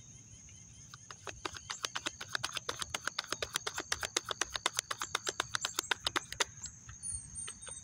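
A tarot deck being shuffled by hand: a fast, even run of card flicks and slaps, several a second. It starts about a second in and stops about six and a half seconds in.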